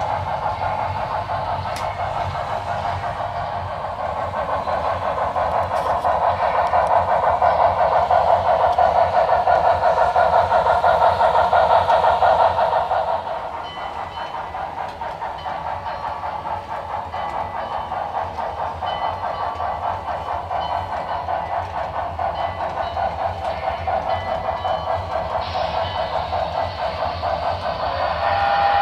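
Digital steam-locomotive sound from HO-scale Broadway Limited model steam engines, played through their onboard speakers: steady steam running sounds with a fast, fine pulsing and some low rumble. It grows louder in the first half, then drops suddenly about halfway through and runs on more quietly.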